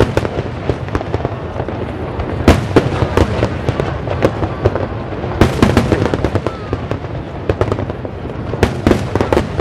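Fireworks display going off: a dense, irregular string of sharp bangs and crackles over a continuous low rumble, with the heaviest bangs about a quarter of the way in, near the middle and near the end.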